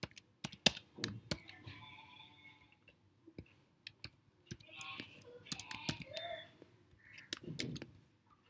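Computer keyboard keys clicking quietly in irregular runs as code is typed.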